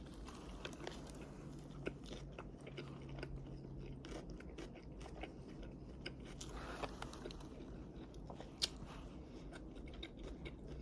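A person biting into and chewing a lobster roll, with soft, irregular mouth clicks and a sharper click near the end.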